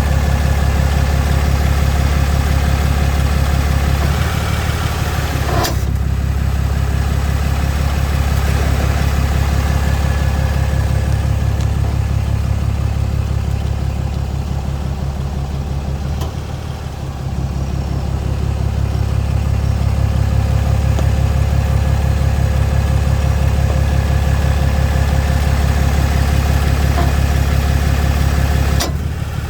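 Ram 2500 pickup engine running steadily, with a sharp pop about six seconds in and another near the end: the popping noise the owner is trying to track down.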